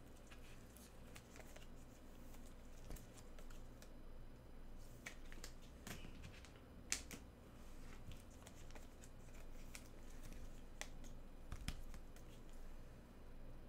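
Faint scattered clicks and rustles of trading cards and packaging being handled, with one sharper click about halfway through, over a steady low electrical hum.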